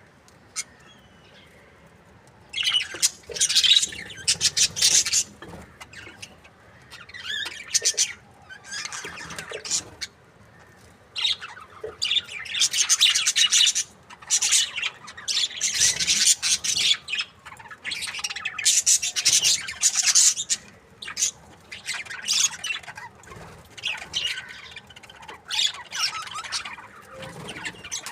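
Budgerigars chirping in bursts of fast, high-pitched chatter, a second or two each, with short pauses between. The chatter starts about two and a half seconds in.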